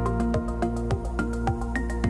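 Background music with a steady beat and short, bright notes.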